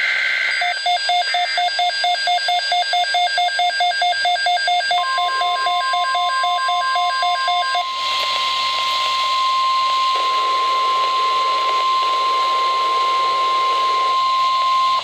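NOAA Weather Radio emergency alert: a SAME digital header burst ends under a second in, then a weather radio receiver's alert beeps rapidly, about four beeps a second, for about seven seconds. About five seconds in, the steady 1050 Hz warning alarm tone starts and holds for about ten seconds over radio hiss.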